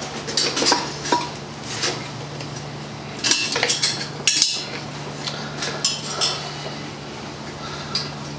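Steel wire being wrapped around a propane weed burner's handle and a steel cross bar: light metallic clinks and scrapes in irregular clusters, over a steady low hum.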